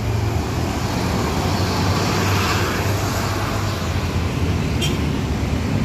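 Diesel engine of a large intercity bus running as it moves out, a steady low rumble mixed with road and traffic noise that swells slightly around the middle.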